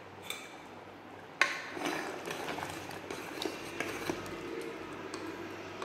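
A metal ladle stirring thick spinach gravy in an aluminium pressure cooker: a sharp clink against the pot about a second and a half in, then scraping with occasional light clinks.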